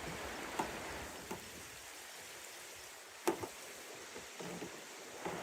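Steady rush of a mountain stream flowing below, with a few faint knocks; the sharpest comes a little past three seconds in.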